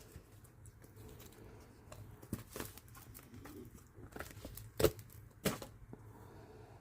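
A silicone mold being peeled and flexed off cured epoxy resin pieces: soft rustling with a few sharp clicks of hard resin, the loudest two about five seconds in and half a second apart.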